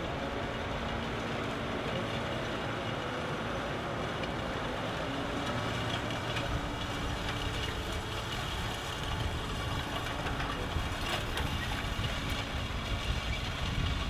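Claas tractor's diesel engine running steadily under load as it pulls a Lemken Solitair 12 seed drill through the soil, with scattered metal clicks and rattles from the drill that become more frequent near the end.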